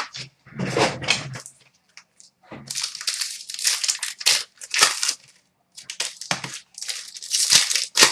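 Trading card pack wrappers being torn open and crinkled by hand, in short irregular bursts of rustling.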